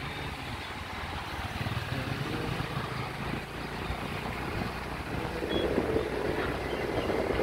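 Motorbike riding along, its engine running under a steady rush of wind on the microphone, getting a little louder near the end.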